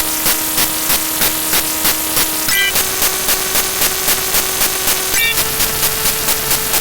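A dense stack of looping sound effects. A held tone steps up in pitch twice, with a short rising chirp at each step, over fast, even clicks about four or five a second.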